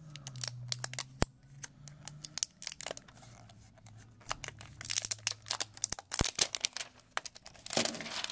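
Clear protective plastic film being peeled off the back of a smartphone, crackling and crinkling in quick bursts. The bursts are thickest about five seconds in and again near the end.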